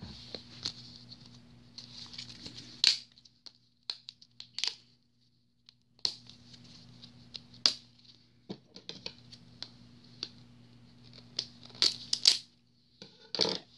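Plastic toy packaging being pulled at and torn open by hand: irregular crinkling with sharp clicks and crackles, and a short pause about five seconds in.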